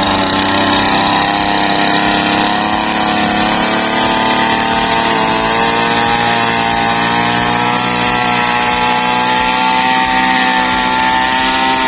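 A motor or engine running at a steady speed, a loud constant hum that holds one pitch.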